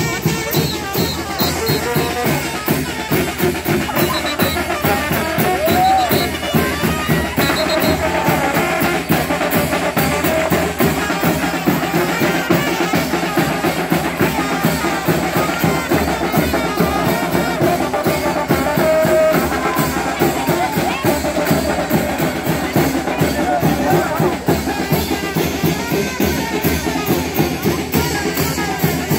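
Live brass band with drums playing: sousaphone and horns over a steady, even beat of snare and bass drum.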